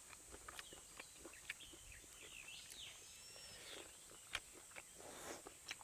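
Faint outdoor ambience: birds chirping in short, sliding calls over a steady high insect drone, with scattered small clicks and taps.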